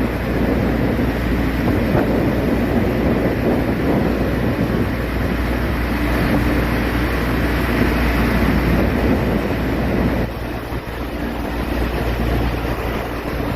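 A river ferry's engine runs steadily with a low hum, under wind rushing on the microphone and water noise. The sound eases slightly about ten seconds in.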